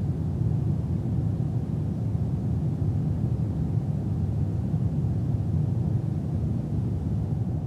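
Steady cabin noise inside a Boeing 787-9 airliner: an even, low rumble of engines and airflow.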